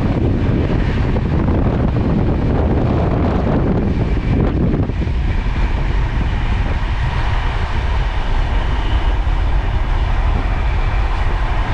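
Duronto Express passenger train running on the track: a loud, steady rumble.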